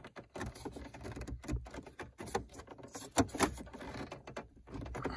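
Plastic dashboard trim around a cigarette lighter being worked loose by hand: scattered clicks and taps with light rubbing between them, the sharpest clicks about a second and a half and three seconds in.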